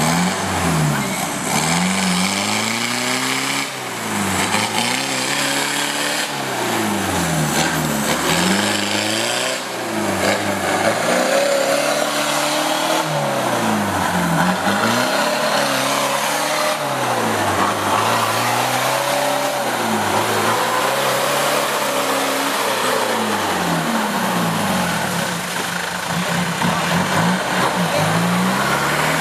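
A 4x4 off-road vehicle's engine revving up and down over and over, about every two to three seconds, over a steady hiss, as the vehicle works through a muddy rut.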